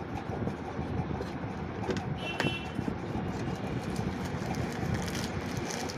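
Steady background noise of a busy shop, a low even hum with traffic-like rumble, with one brief faint high sound about two and a half seconds in.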